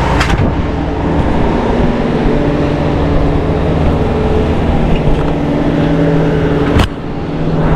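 Parked delivery truck running loud, a steady hum, with a sharp knock near the end.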